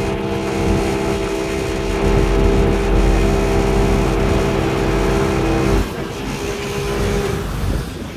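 Tow truck's engine running steadily with a low rumble, its sound dropping away suddenly about six seconds in.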